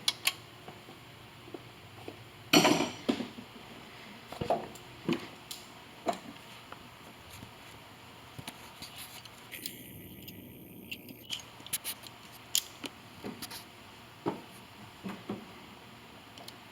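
Scattered light metallic clinks and knocks from tools and parts being handled on the lathe's headstock gearing, with one louder clatter about two and a half seconds in.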